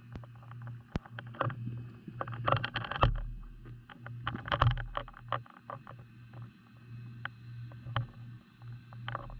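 Underwater recording through a camera's waterproof housing: a steady low hum with many sharp clicks and knocks scattered through it. The knocks come thickest about two and a half seconds in and again just before five seconds.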